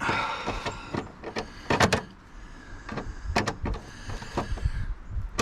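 Screwdriver and licence plate being handled at a pickup truck: a short scrape at the start, then a few sharp metallic clicks and knocks.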